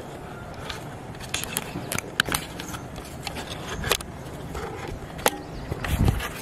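Steady outdoor background noise with a scattering of short sharp clicks and crackles.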